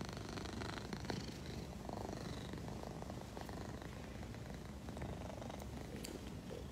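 Egyptian Mau cat purring steadily.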